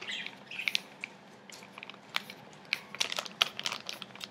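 A sheet of scrap paper being handled and folded, rustling and crinkling with many short crisp crackles and clicks as it is folded in half and the fold is pressed.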